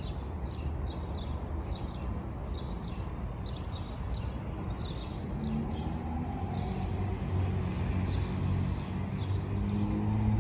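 Small birds chirping in quick, repeated short notes over the steady rumble of city traffic, with a vehicle's engine hum getting louder about halfway through.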